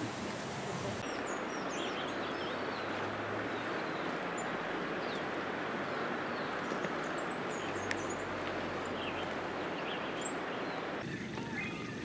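Forest ambience: a steady rushing background noise with many brief, faint bird chirps and whistles from several birds. The background changes abruptly about a second in and again near the end.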